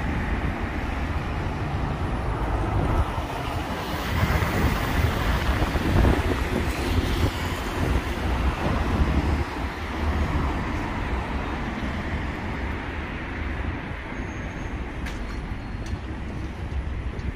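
Road traffic: cars and double-decker buses running past, a steady rumble that swells as vehicles pass close between about three and ten seconds in, then eases.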